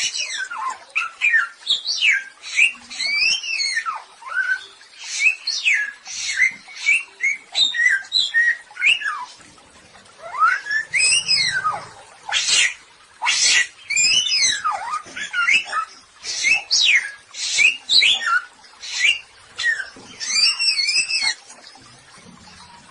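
A samyong songbird singing a fast, varied song of arching whistled notes mixed with a few harsh, buzzy calls, with a brief pause near the end.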